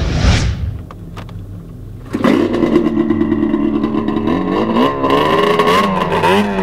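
A whoosh ending about half a second in, then a few clicks; about two seconds in a Ski-Doo snowmobile engine starts abruptly, runs at a steady idle, and from about four and a half seconds revs up and down.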